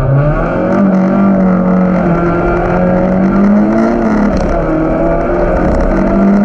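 A 1600cc race car's engine, heard from inside the cockpit, pulling hard off the race start. Its pitch jumps up early, then holds high with brief dips as it keeps accelerating.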